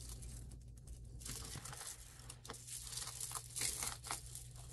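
Faint rustling and light clicks of jewelry being handled and sorted by hand, with a couple of slightly louder rustles about three and a half seconds in.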